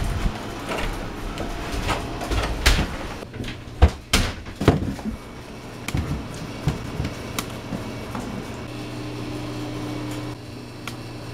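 Sharp household knocks and clatter, with a door being handled, the loudest knocks about four seconds in. About two-thirds of the way through, a steady low electrical hum sets in.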